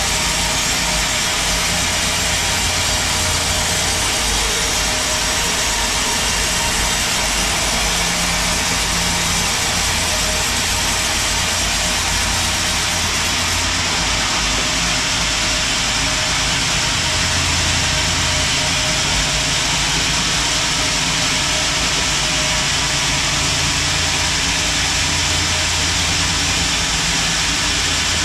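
Sawmill machinery running steadily: a dense, even noise over a low, engine-like hum.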